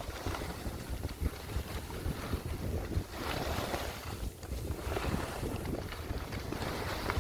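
Wind rushing over the microphone during a downhill ski run, with the hiss of skiing through powder snow swelling in a couple of turns.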